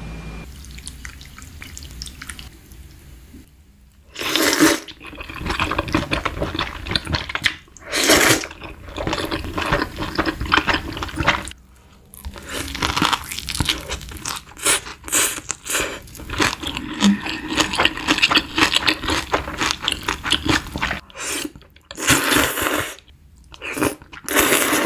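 Close-miked chewing and crunching of a seaweed-wrapped rice roll, in quick irregular bites, after a few quieter seconds. Near the end come loud, long slurps of noodles.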